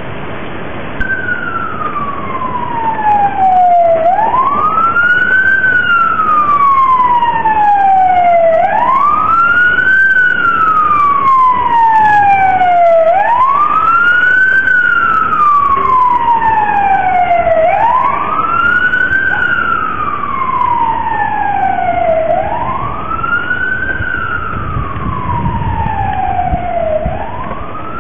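Outdoor tornado warning siren wailing: its tone rises quickly and falls slowly in a cycle of about four and a half seconds, starting about a second in. Under it is a steady hiss of rain.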